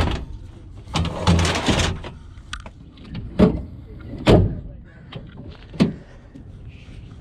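Work van's rear doors and gear being handled: a stretch of rustling about a second in, then three sharp clunks over the next few seconds.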